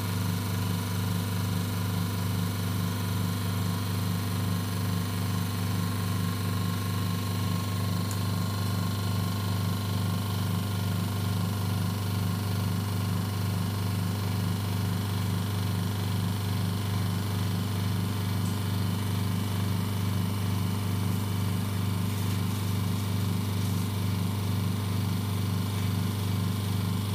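Vacuum pump of an OCA vacuum laminator running with a steady low hum during the machine's one-minute vacuum extraction stage, cutting off abruptly at the very end as the extraction time runs out.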